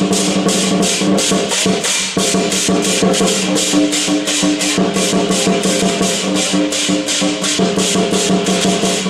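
Music with a fast, even shaker-like beat, about four to five strokes a second, over sustained low held notes.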